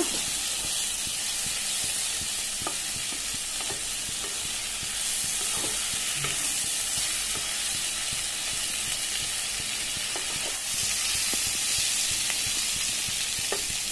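Pointed gourd (potol) pieces shallow-frying in oil in a nonstick kadai with a steady sizzle, with occasional light scrapes of a spatula stirring them.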